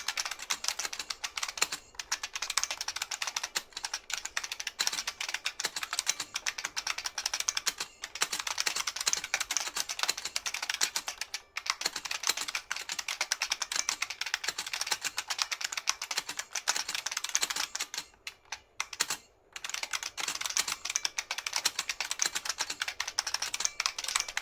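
Continuous fast typing on a New Model F F77 capacitive buckling-spring keyboard, a dense stream of key clicks. The typing thins to a few scattered keystrokes about 18 seconds in, then picks up again.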